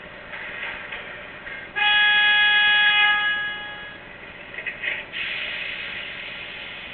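A model subway train's electronic sound system blows its horn once. It is a steady multi-tone blast that starts suddenly, stays loud for about a second and a half, then fades. A few light clicks follow, then a steady rushing noise.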